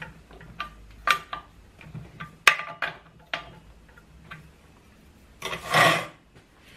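Metal clicks and taps of a T-wrench on the bar nuts of a chainsaw's metal chain cover as the nuts are done up, a dozen or so irregular clicks, some with a short metallic ring. Near the end comes a louder rustling swish lasting under a second.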